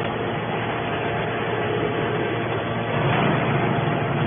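Hydraulic scrap metal baler running: a loud, steady mechanical drone from its hydraulic power unit as the press works, swelling a little about three seconds in.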